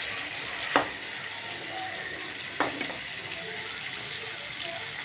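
Meat sizzling as it is dry-fried with spices in a steaming pan, the last stage of a kosha, stirred with a spatula. Two sharp knocks of the spatula against the pan, about a second in and again near the middle.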